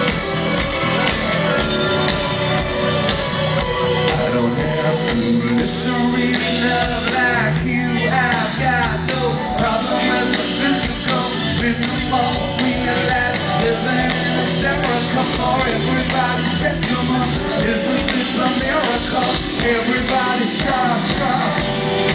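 Live pop-rock band playing, with drums, electric guitar and keyboards under a male lead vocal, recorded loud from within the audience.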